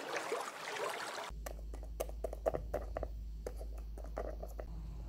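A splashing, water-like sound that cuts off about a second in, followed by a steady low hum with scattered light clicks and taps.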